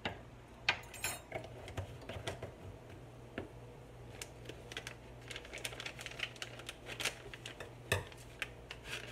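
Scattered light clicks and taps of kitchen items being handled on a countertop: a metal spoon, a small spice jar and kitchen scissors. The clicks come faster and closer together in the second half.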